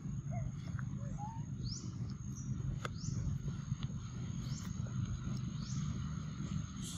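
Outdoor woodland ambience: a bird gives short, high, rising chirps about once a second over a steady high insect tone, with a constant low rumble underneath.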